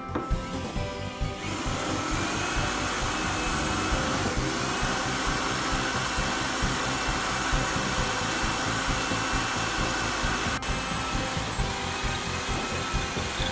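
Electric power tool motor starting up about a second and a half in and running steadily with a high whine, its pitch dipping briefly twice, over background music with a beat.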